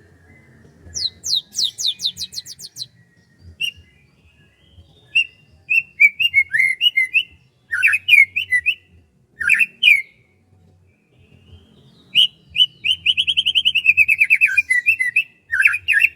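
Songbirds singing: a run of quick falling whistled notes about a second in, then short warbled phrases, and a long rapid trill that ends in falling notes near the end.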